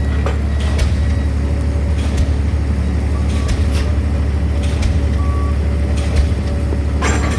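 A heavy diesel engine on a pile-driving rig running steadily with a deep drone, with a few scattered metallic knocks and two short beeps partway through.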